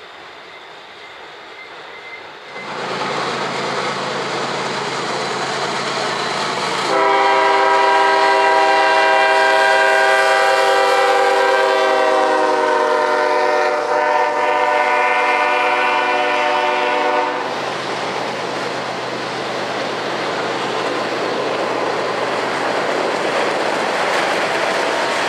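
A CSX diesel locomotive sounds its multi-chime horn in one long blast of about ten seconds, with a brief dip near the middle, as it passes close by. Autorack cars then roll past with a steady rail clatter. Before this, a quieter stretch of a hopper train rolling over a steel bridge at a distance.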